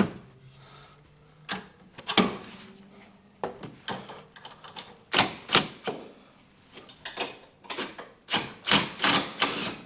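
Irregular metallic clinks and knocks of hand tools on a Jeep Cherokee's front suspension as the bolt of a loose upper link is worked out, about a dozen sharp strikes with pauses between them.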